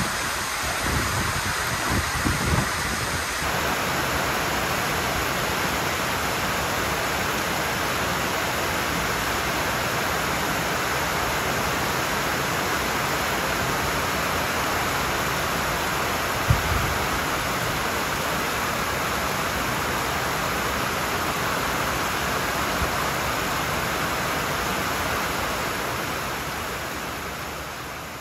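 Wind gusting on the microphone for the first few seconds, then suddenly a steady, even hiss of heavy rain pouring down. There is a single short thump about halfway, and the rain fades out near the end.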